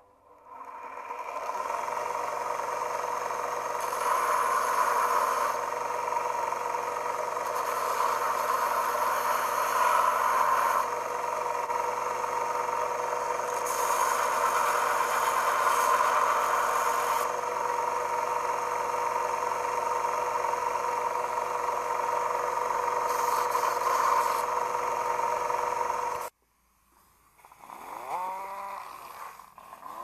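Combination bench grinder and belt sander motor spinning up and running with a steady whine. A small metal door-lock part is pressed against the sanding belt in several passes to grind off damage, each pass adding a louder rasping hiss. It cuts off abruptly near the end.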